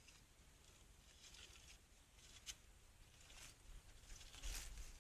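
Near silence, broken by a few faint, brief rustles, the loudest about four and a half seconds in.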